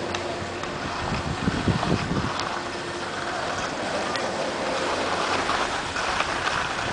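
Wind buffeting the microphone while skiing, over the hiss of skis sliding on packed snow, with a few heavier low buffets near the middle.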